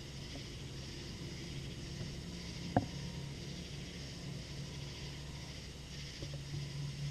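Quiet background on a boat at night: a steady low hum with a faint high hiss, and one sharp click a little under three seconds in.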